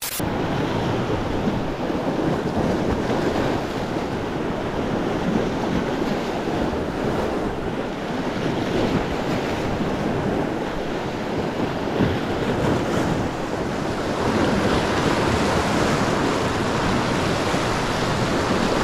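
Sea surf washing over and around low shoreline rocks, with wind buffeting the microphone; the surf grows a little louder about three-quarters of the way through.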